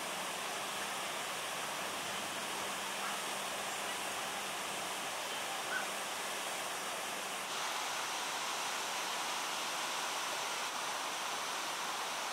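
Steady rush of flowing water, like a small stream or water running over a weir, with a faint short blip about six seconds in and a slight change in the rush about halfway through.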